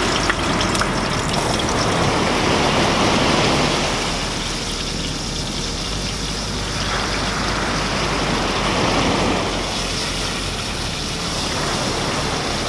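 Strips of Australian salmon frying skin side down in hot oil in a pan on a portable gas stove, sizzling steadily.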